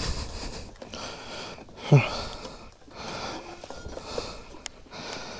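Close breathing and sniffing of a person at the microphone, with one short falling grunt about two seconds in and a single sharp click near the end.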